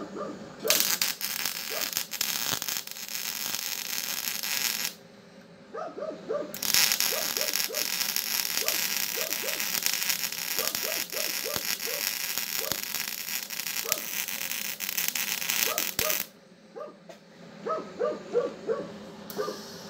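Semi-automatic (MIG) welding arc on steel pipe, crackling and hissing in two runs: one of about four seconds starting just under a second in, then a longer run of about nine and a half seconds after a short pause.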